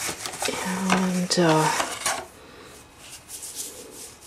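Packaging being handled in a cardboard box: plastic tubes, bottles and a foil sachet from a hair-colour kit clattering and rustling as they are picked out, busiest in the first half and fainter after. Two short pitched sounds come about a second in.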